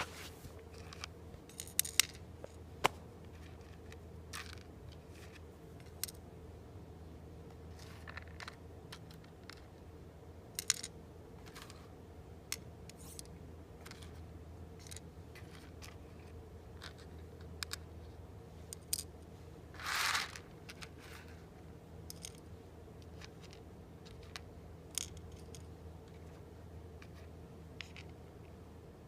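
Satake GA20RA optical sorter running on roasted coffee beans: a low steady hum with sharp clicks at irregular intervals, and a short hiss about twenty seconds in.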